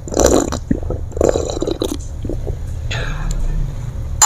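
A person drinking from an enamel mug close to the microphone, with about three audible gulps and breaths.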